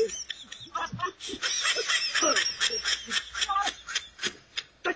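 Laughter in quick, repeated bursts.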